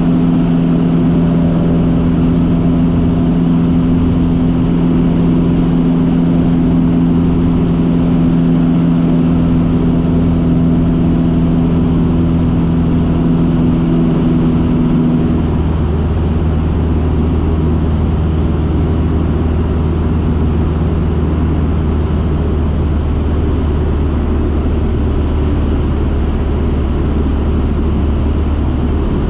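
Cessna 150's four-cylinder Continental O-200 engine and propeller droning steadily, heard inside the cabin in flight. About halfway through, the engine note shifts lower and the sound gets slightly quieter.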